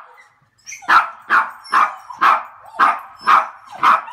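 Small doodle dog barking steadily, short barks at about two a second, starting about a second in after a brief hush: excited barking at the prospect of a walk.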